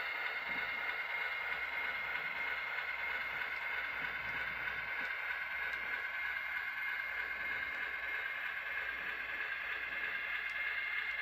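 Model diesel locomotive running slowly along the track with a few cars: a steady high motor whine over the rolling of small wheels on rail, with a couple of faint ticks.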